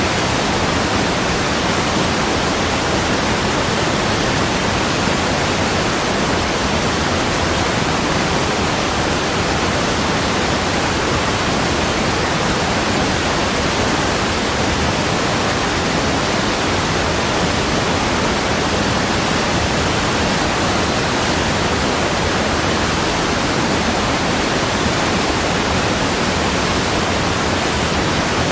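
Steady, even rushing of water, like a waterfall, with no change in level.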